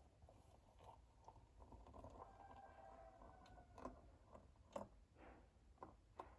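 Near silence: quiet room tone with a few faint soft clicks in the second half.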